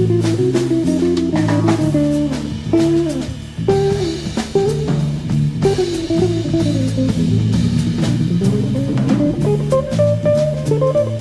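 Background music: guitar-led instrumental with bass and a steady drum beat.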